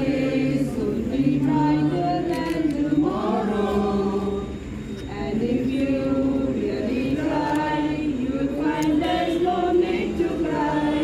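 A crowd singing together, several voices holding long notes in slow phrases with short breaks between them.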